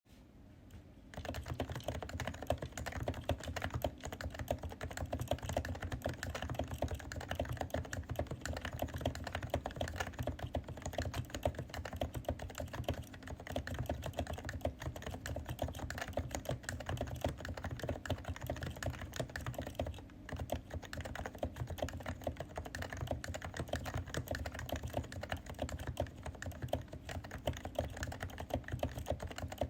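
Realforce 108UH-S keyboard, with stock unmodified Topre electrostatic capacitive switches, typed on continuously in fast, dense keystrokes after about a second of quiet, with a brief pause about two-thirds of the way through.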